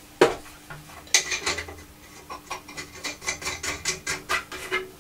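Handling noise as a Perspex chip guard is fitted to a milling machine head by hand: a sharp knock just after the start and another about a second in, then a run of small clicks and scrapes of nuts and washers being worked onto the threaded mounting studs.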